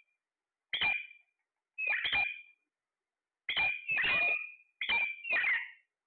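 Alexandrine parakeets squawking: about five short calls in a row with brief silent gaps between, the longest about four seconds in.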